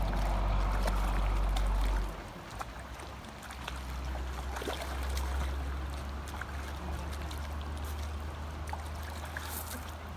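Flowing water from a stream, with a low rumble of wind on the microphone that drops off about two seconds in, and scattered small clicks.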